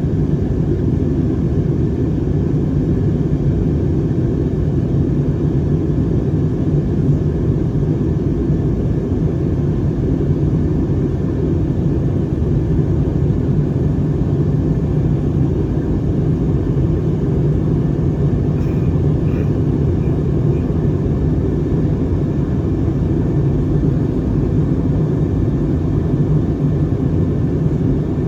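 Steady airliner cabin noise in flight: a constant low rumble of jet engines and airflow heard from inside the passenger cabin.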